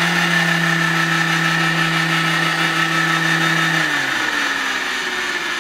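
Scheppach DP60 710 W bench drill press running with a steady motor-and-gearbox whine. About four seconds in, the pitch falls as the variable-speed knob is turned down toward its lowest speed. The machine is loud, and the owner puts most of the noise down to its gearbox.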